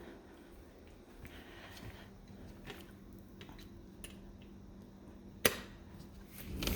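Sliding glass door being unlatched with one sharp click about five and a half seconds in, then rolled open near the end with a rising rush. A faint steady hum runs underneath.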